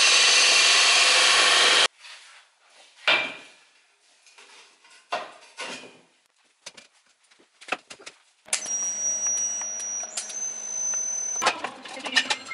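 Horizontal metal-cutting band saw cutting through square steel tube: a loud, even noise that cuts off suddenly about two seconds in. Scattered knocks and clicks of steel tubes being handled follow. Then a steady high-pitched whine over a low hum lasts about three seconds, before more clatter near the end.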